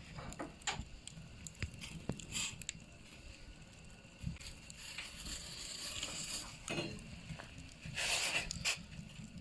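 Quiet cooking sounds at a wood-burning stove: scattered light clicks and knocks, a soft hiss around the middle, and a brief rustle about eight seconds in.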